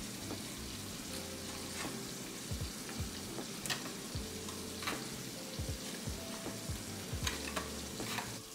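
Sage leaves frying in melted butter in a small pan: a steady sizzle with scattered crackles and pops.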